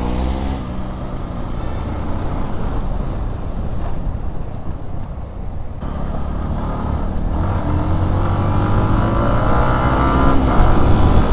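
Motorcycle engine running under way, its pitch climbing as it accelerates about halfway through and growing louder, over a steady rush of wind noise.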